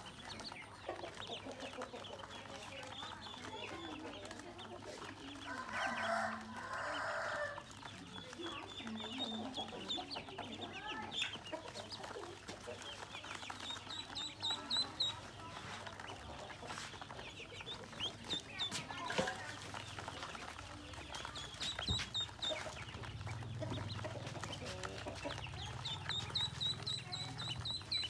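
A group of ducklings peeping continually with short, high chirps as they crowd and drink in a basin of water, with small splashes. About six seconds in, one louder, lower bird call is heard.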